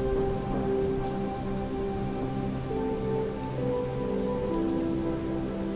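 Steady rainfall with soft background music of slow, held notes changing every second or so.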